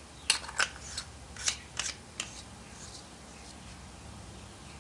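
Flashlight bezel head being fitted and threaded back onto a Streamlight Stinger XT body: about six or seven sharp clicks and scrapes in the first two and a half seconds, then only faint handling.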